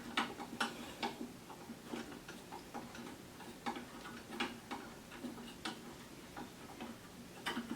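Irregular sharp clicks, two or three a second, as a fastener on the tiller's handle assembly is tightened by hand.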